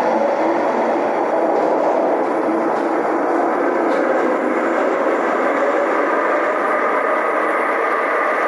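TTC Scarborough RT (Line 3) train running steadily along the track: continuous, even running noise with a faint steady hum.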